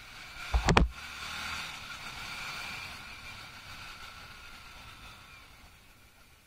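Yamaha R15 V3's single-cylinder engine and wind noise while riding, with a short cluster of loud thumps on the microphone about half a second in. The engine note then eases and fades as the bike slows.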